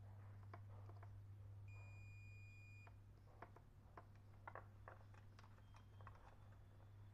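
A digital multimeter gives one steady high beep lasting about a second, near the start, amid faint clicks of test probes touching the iron's terminals and plug pins. A low steady hum runs underneath.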